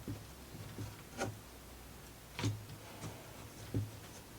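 Wooden plywood parts of a model marble-run mechanism clicking as they are handled and worked by hand: four separate sharp clicks about a second and a quarter apart, the last two the loudest.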